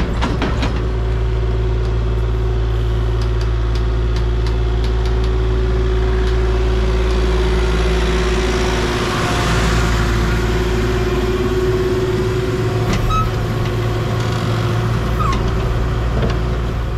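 A heavy machine's engine running steadily under a constant low hum, with a steady tone above it and a few quick ticks in the first second.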